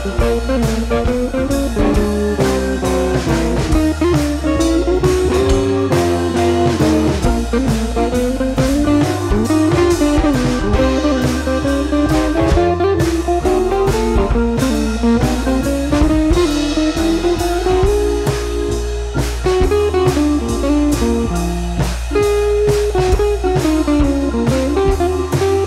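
Background music: a blues-style guitar tune over a steady drum beat, its melody sliding up and down in pitch.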